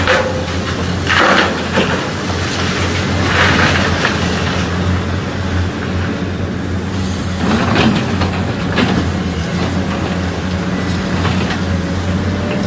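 Hitachi 890LC 90-ton excavator's diesel engine running steadily under load, with several short rushes of dirt and rock as the bucket digs and dumps.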